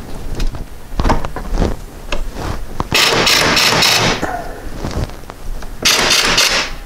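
Impact wrench hammering in two bursts, each about a second long, on a frozen Allen-head bolt of a 1993 VW Cabriolet's water pump pulley, trying to break it loose. A few metallic knocks of the tool being set on the bolt come first.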